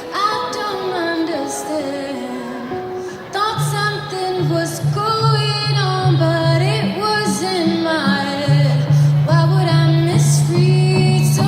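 Woman singing a live song in gliding, ornamented lines without clear words, over accompaniment; steady held low notes come in about three and a half seconds in and carry on under the voice.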